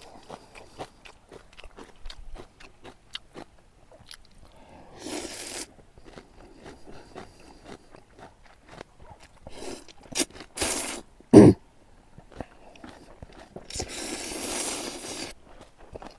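Close-miked chewing of crisp kimchi: a steady run of short crunches, with a few longer stretches of noise between bites. A single sharp knock a little past the middle is the loudest sound.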